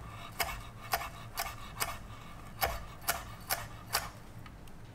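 Chef's knife chopping cilantro on a wooden cutting board: a steady run of knocks, about two to three a second, that stops about four seconds in.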